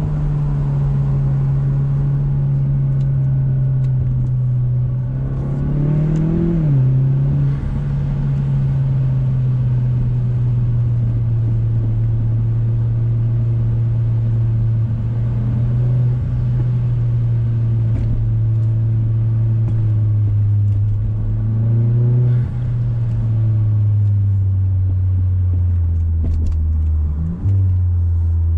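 Turbocharged Mazda6's engine and exhaust droning steadily under way at cruising revs, with tyre and road noise beneath. The revs rise briefly about six seconds in and again just past twenty-two seconds, sink low near the end, then climb again.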